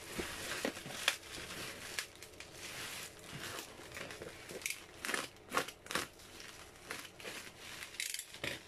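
Plastic courier bag and bubble wrap crinkling and rustling as they are peeled off a cardboard box, with a few sharper crackles about a second in and again around five to six seconds in.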